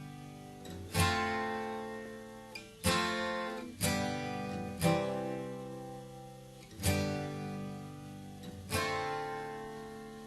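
Music: slow acoustic guitar chords, strummed six times about one to two seconds apart, each left to ring out and fade.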